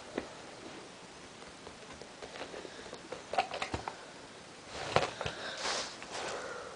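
A dog sniffing at a plastic Easy Button with its nose, with a few light clicks and taps scattered through. A longer run of sniffing comes about five seconds in.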